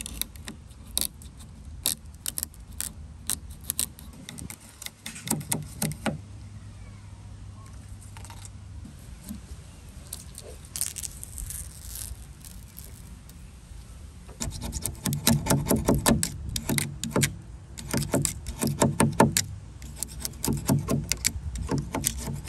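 Razor blade scraper chipping a brittle, flaking finish off old dresser wood: sharp clicks and short scrapes as flakes snap off, then a louder run of quick back-and-forth scraping strokes in the last third.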